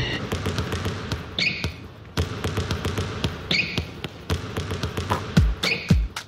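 Basketballs dribbled on a hardwood gym floor, the bounces falling into a rhythm, with short sneaker squeaks about every two seconds. Heavier bounces come near the end.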